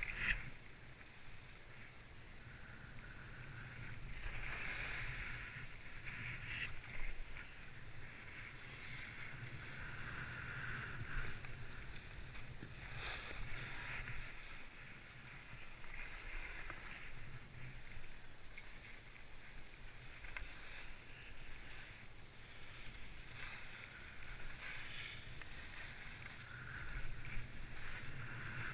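Skis sliding and scraping over groomed snow on a downhill run, a hiss that swells and fades with each turn over a low rumble.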